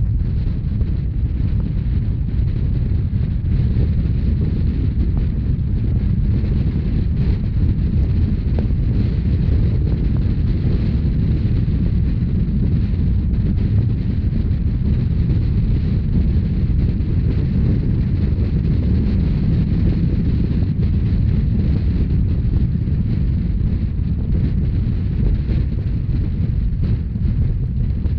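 Steady low rumble of a narrow-gauge Rhaetian Railway train running, with heavy wind buffeting the microphone.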